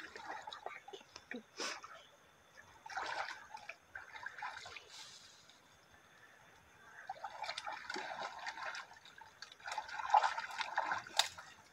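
Faint, irregular splashing and sloshing of water as a person wades and drags a fishing net through a shallow pond, in clusters with a quiet pause in the middle.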